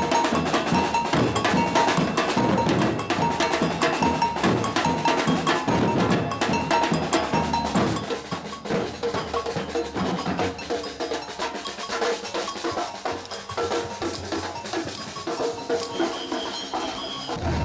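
Batucada percussion ensemble playing: drums and bells beating a dense samba rhythm. It drops a little in level about halfway through.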